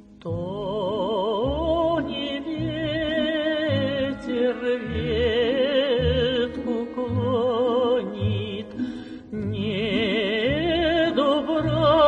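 Female folk singer singing a Russian song in a full voice with wide vibrato, over an instrumental accompaniment with a regular pulse of low bass notes. The singing starts just after the beginning, breaks briefly about nine seconds in, and picks up again.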